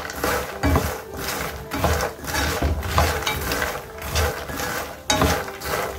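Wooden spatula stirring puffed lotus seeds (makhana) in a non-stick pan, the light seeds rattling and rolling against the pan in repeated, irregular strokes, with a sharper knock about five seconds in. The seeds are being dry-roasted in a little oil.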